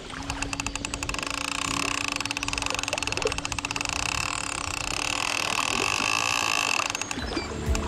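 Small electric motor on a belly boat running, worked by a handheld remote: a steady hum with a higher whine over it, stopping near the end.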